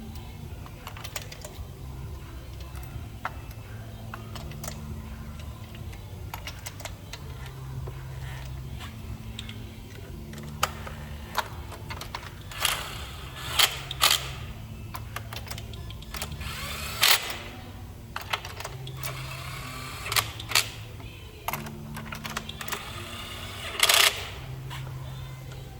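Metal hand tools clinking and rattling during spark plug work, with scattered sharp clinks, some ringing, from about ten seconds in, over a faint low bass line of background music.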